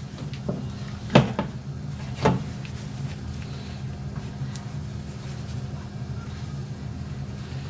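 Kitchen handling sounds as butter is dotted onto rolled-out dough with gloved hands: a few sharp knocks on the worktop in the first two and a half seconds, the loudest about a second and two seconds in, over a steady low hum.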